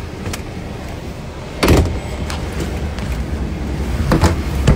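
Steady low hum inside an airliner cabin, with a few knocks and thumps of movement and handling: the loudest about two seconds in, two more near the end.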